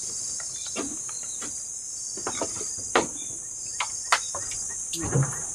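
A steady, high-pitched chorus of forest insects, with scattered short knocks and clicks over it, the sharpest about three and four seconds in.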